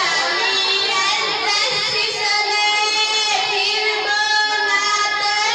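A girl singing a song solo into a handheld microphone, holding long notes with a slight waver in pitch.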